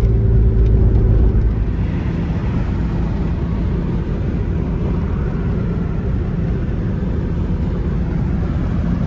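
Inside the cabin of an S50-swapped BMW E34 wagon at highway speed: its straight-six engine is heard strongest in the first second and a half, then mostly steady road and wind noise.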